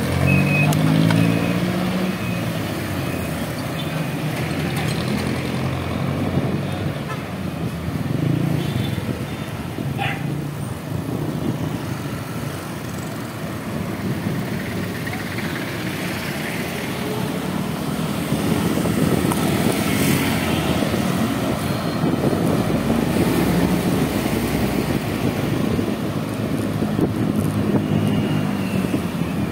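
Road traffic: motor vehicle engines running, their pitch rising and falling as they speed up and slow down, over a steady road noise.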